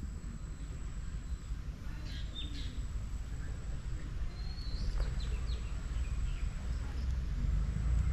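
Birds chirping a few times over a steady low outdoor rumble: a cluster of short high calls about two and a half seconds in, and a short rising call with quick chirps about halfway through.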